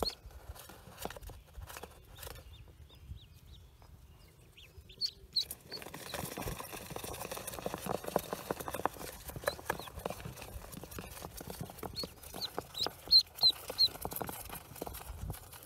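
Newly hatched Pekin ducklings peeping: short high peeps, clustered about five seconds in and again near the end. From about six seconds in there is rustling and scraping as a hand reaches in among the ducklings in the dirt hollow.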